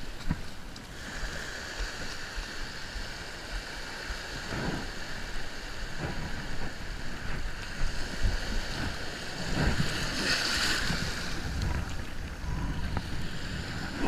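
Small surf waves washing up a sandy beach, with wind buffeting the microphone and boots splashing through the shallow wash. A wave swishes in louder about ten seconds in.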